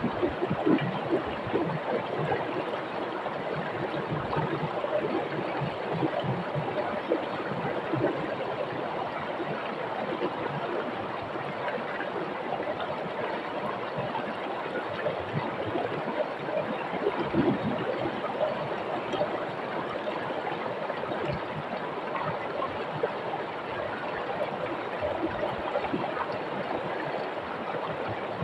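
Rocky river flowing over stones: a steady rush of water with constant small splashes and gurgles.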